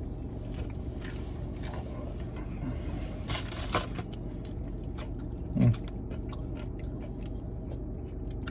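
Close-up crunching and chewing of a bite of battered fried pollock, with small crackles and clicks of the crisp batter, over a steady low hum in the car cabin. A short low voice sound, like a 'mm', comes about five and a half seconds in.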